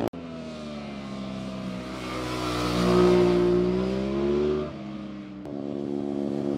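A sport motorcycle's engine passing through a corner: the engine note swells as the bike comes closer, peaks about three seconds in and then falls away. After a sudden break near the end, another bike's engine begins to build.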